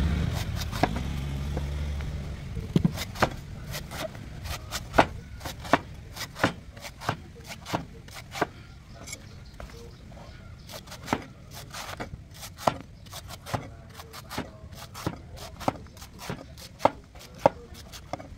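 A large knife chopping into the husk of a young coconut: a steady series of sharp chops, roughly one to two a second. A passing vehicle's low rumble fades out over the first couple of seconds.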